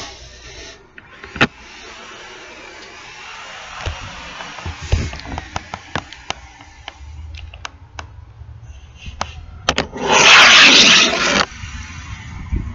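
Camera handling noise: scattered clicks and knocks, then a loud rustling rush about ten seconds in that lasts a second and a half.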